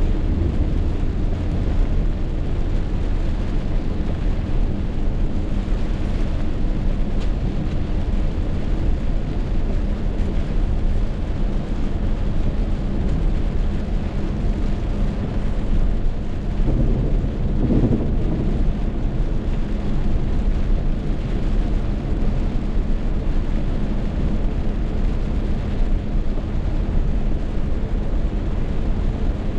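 Rainstorm: wind and rain making a steady, loud low rumble, with a brief wavering tone around two-thirds of the way through.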